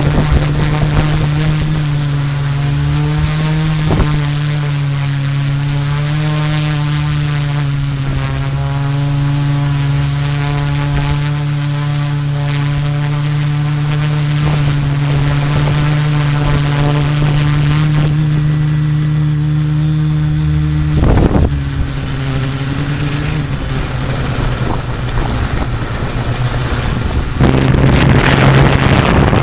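Multirotor drone's brushless motors and 13-inch carbon propellers humming steadily from the onboard camera, the pitch drifting a little as it hovers and descends. Near the end wind rushes over the microphone as the drone speeds up and flies off.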